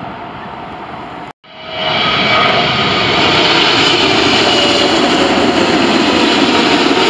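Turkish Airlines Boeing 777-300 passing low on final approach with its gear down: its twin jet engines make a loud, steady rumble with a whine on top. Before that, a quieter steady rumble cuts out briefly about a second in, and the jet noise then swells in over the next half second.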